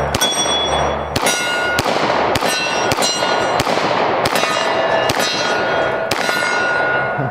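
Glock 20 Gen 5 10mm pistol firing nine shots, spaced about half a second to a second apart, each followed by the ringing of struck steel targets. The magazine runs through without a malfunction.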